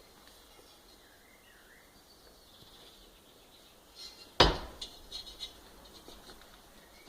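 A single sharp knock a little over four seconds in, followed by a few lighter clicks and rattles, over quiet room tone.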